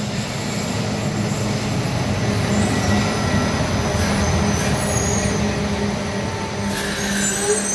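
Underground metro train pulling into the station, a steady loud rumble of its motors and wheels on the rails as it passes along the platform.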